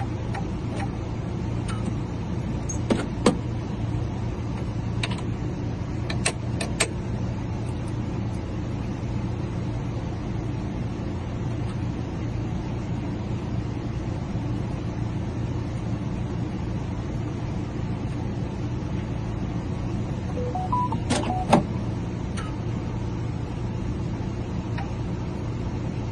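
Key-cutting machine running steadily as it cuts one side of a door key blank, with a few sharp clicks about three, six and twenty-one seconds in.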